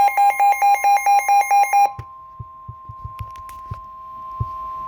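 Emergency Alert System broadcast: the loud end of the warbling digital header data tones, which cut off about two seconds in and give way to a single steady, quieter alert tone near 1 kHz, the weather radio warning tone that precedes a tropical storm warning message. Faint clicks sound behind the steady tone.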